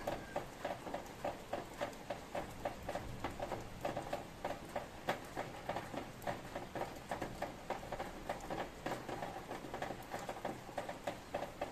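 Raindrops pattering and dripping in an irregular run of sharp taps, several a second, over a faint steady hiss of rain.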